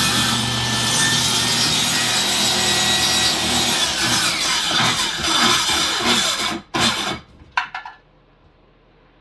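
Power saw running and cutting through wood framing, steady for about six and a half seconds and then stopping, followed by two brief noises.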